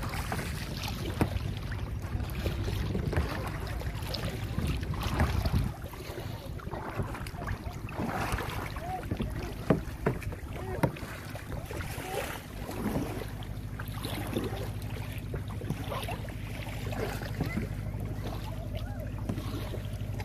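Kayak paddles dipping and splashing in calm sea water, with irregular drips and slaps. Wind buffets the microphone, heavily for about the first six seconds and then more lightly.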